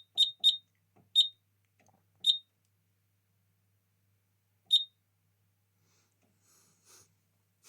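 Kentec Syncro fire alarm panel's keypad buzzer giving short high beeps as its buttons are pressed: three quick beeps, then three more spaced a second or more apart.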